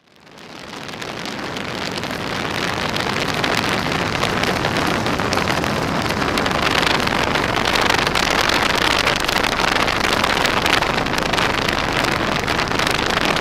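OS AX155 engine of a 2 m Stick model airplane running with its propeller spinning, heard from a camera mounted on the plane, with heavy wind rush on the microphone. The sound fades in over the first two seconds.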